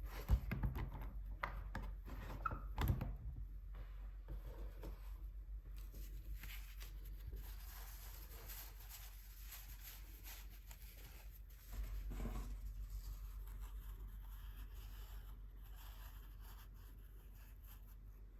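Close, quiet desk sounds of art materials being handled: a few sharp taps and knocks, then soft scratchy rubbing like a brush or paper being worked, with a dull bump about twelve seconds in.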